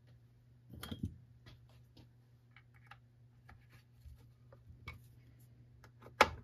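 Screwdriver driving the fuel tank screws into a Troy-Bilt TB22EC string trimmer's plastic powerhead housing: a run of small irregular clicks and ticks, with a louder knock about a second in and another near the end.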